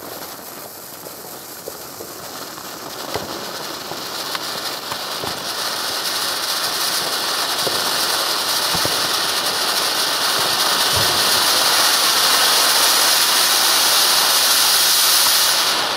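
Weco volcano firework fountain burning, a steady hiss of spraying sparks that grows louder over the first half, with a few scattered crackles, then cuts off suddenly as it burns out at the end.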